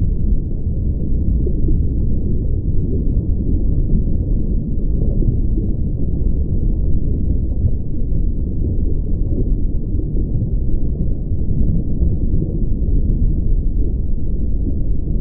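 Steady, loud low rumble with no distinct events or pitch.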